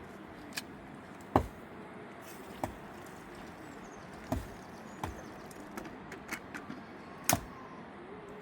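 Sharp knocks struck at uneven intervals during building work, about half a dozen in all: the loudest comes about a second and a half in and another near the end, with lighter clicks in between.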